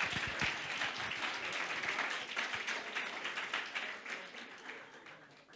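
A small audience clapping, the applause dying away near the end.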